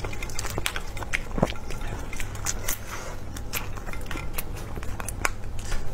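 Marinated shellfish being broken apart by plastic-gloved hands close to the microphone: irregular sharp cracks and crackles of shell snapping, over a steady low hum.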